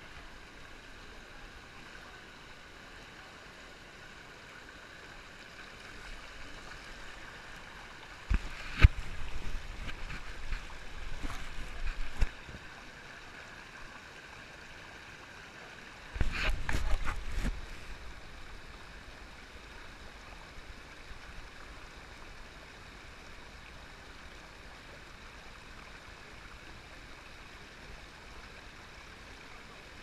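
Shallow river water flowing steadily over rocks. Two spells of loud low rumbling with sharp knocks stand out, one from about eight seconds in lasting some four seconds and a shorter one about sixteen seconds in.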